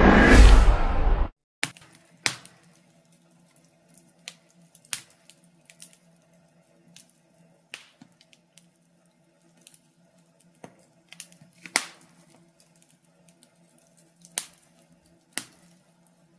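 A loud rushing intro sound cuts off about a second in. Then fire crackling: irregular sharp pops and snaps, a few of them louder, over a faint steady hum.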